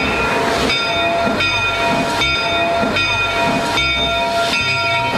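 Steam-train sound effect for a classic toy locomotive: a rhythmic hissing chuff, a little more than one beat a second, under a steady chord of high tones.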